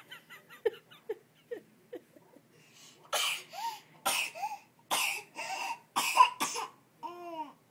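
A baby's excited vocal sounds: a few short, high babbling noises, then from about three seconds in a run of loud, breathy, cough-like bursts, ending in a short cry-like sound.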